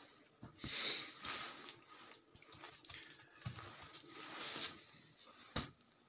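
Two short breathy puffs close to the microphone, like a person's breaths, the first about a second in being the loudest, with a few light clicks and a sharp click near the end.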